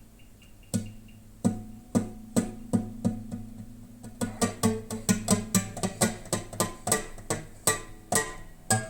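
Music on a plucked string instrument: single ringing notes picked one after another, spaced at first, then quickening into a fast run a little before halfway, then slowing again.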